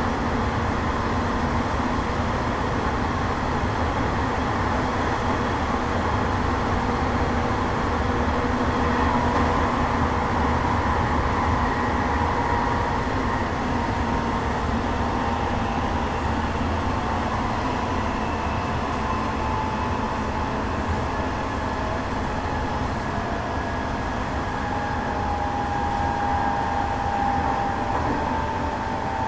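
Hanshin 1000 series electric train running, heard from inside the car: a steady rumble of wheels on the rails, with a faint whine that drifts slightly in pitch.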